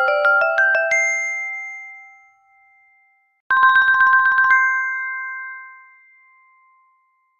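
Two short electronic alert tones from a Samsung Galaxy Watch Ultra smartwatch. The first, already sounding, runs up in quick chiming notes and fades out about two seconds in. The second begins about three and a half seconds in with a rapid fluttering chord, shifts pitch, then rings on and fades.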